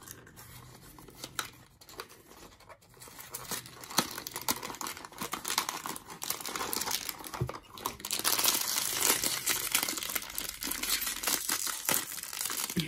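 Hands handling a small cardboard blind box with scattered light taps and scrapes, then a foil blind bag crinkling and being torn open, louder and denser from about eight seconds in.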